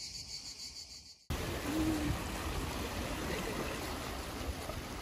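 Cicadas buzzing in a high, pulsing drone. About a second in, this cuts suddenly to sea water washing and splashing against a rocky shore: a steady rushing noise.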